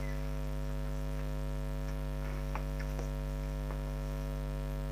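Steady electrical mains hum, a low buzz with a stack of overtones. A few faint clicks come between about two and four seconds in.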